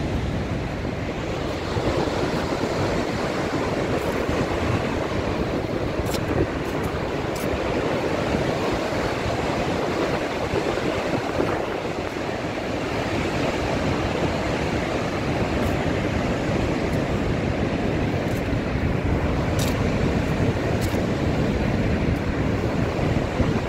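Steady, loud rushing roar of Niagara Falls, a huge volume of water plunging over the brink into the gorge, continuous and unbroken.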